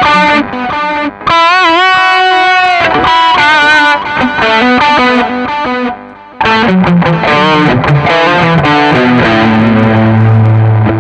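Electric guitar played through a Nux MG-400 multi-effects unit with a digital delay switched on: a lead line with wavering bent notes in the first few seconds, then a run of single notes, settling on a held low note near the end.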